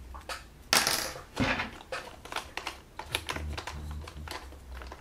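Light clicks and knocks of small hard parts being handled on a tabletop, with a short scraping rustle about a second in.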